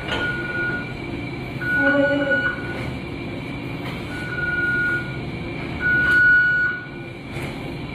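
Medical equipment alarm in an intensive care unit, sounding four long, steady beeps a second or two apart over a steady background hum.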